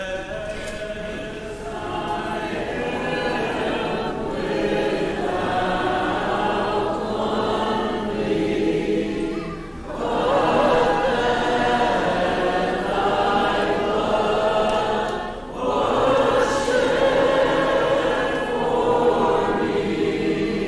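A congregation singing a hymn together without instruments, many voices in unison, with short breaks between phrases about ten and fifteen seconds in.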